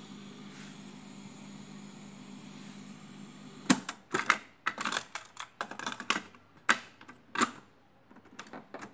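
Mechanical piano-key buttons on a retro music centre's cassette deck, pressed in a quick, irregular run of sharp clicks starting about four seconds in. Before that only a faint steady hum.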